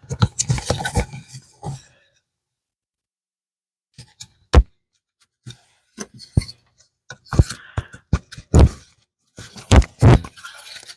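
Wooden pieces being fitted together by hand: irregular knocks, taps and short scrapes of wood on wood, with a silent gap about two to four seconds in.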